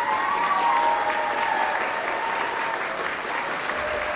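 Audience applauding steadily after a performance, with a drawn-out cheer rising over the clapping in the first three seconds.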